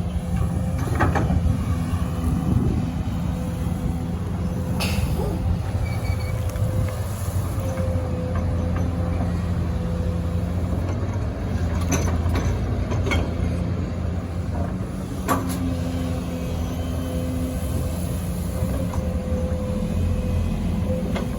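XCMG XE215CT excavator's diesel engine running steadily under load, with a constant higher tone over its hum and a few sharp knocks scattered through, about a second in, near five seconds, around twelve to thirteen seconds and at fifteen seconds.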